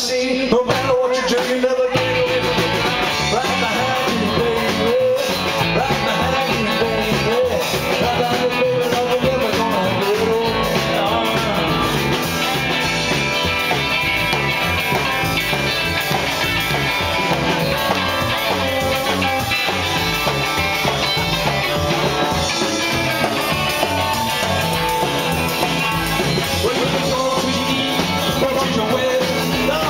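Live rock and roll band playing, electric guitars prominent, heard from the audience.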